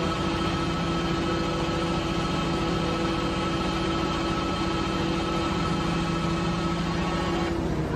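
Mechanical cherry harvester running steadily, an even engine-and-machinery drone with a few constant tones in it. Near the end the higher part of the sound suddenly drops away.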